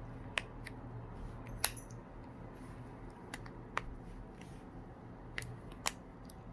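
Light, scattered clicks and taps, about six in all, from small repair tools and the phone being handled on the bench, over a low steady hum.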